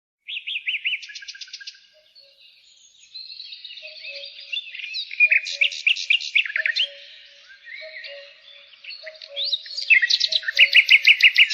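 Pied bushchat (decu) song played as a lure recording: a fast, varied run of high whistled notes, trills and sweeps, ending in a loud series of quick repeated notes. A soft, low two-note call repeats underneath about every second or so.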